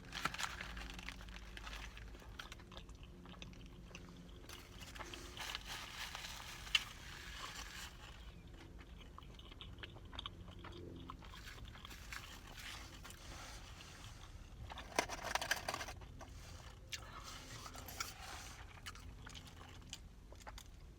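Mouth chewing and crunching on a crispy fried chicken sandwich, with one sharper crunch about seven seconds in and a louder flurry of crunching about fifteen seconds in.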